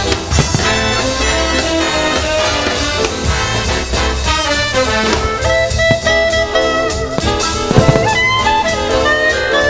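Loud jazzy music with brass and drums, with a sharp hit standing out about eight seconds in.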